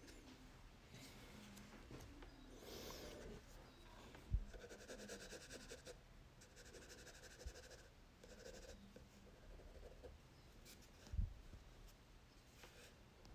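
Faint scratching of a black Crayola crayon on drawing paper in stretches of quick hatching strokes. Two soft low thumps come a little over four seconds in and again about eleven seconds in.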